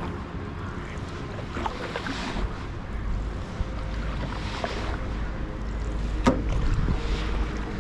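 Canoe paddle strokes in the water, a soft splash about every two and a half seconds, with a sharp knock near the end and low wind rumble on the microphone.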